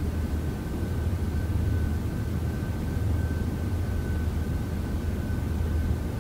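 A steady low hum with hiss over it and a faint, constant high-pitched whine, unchanging throughout.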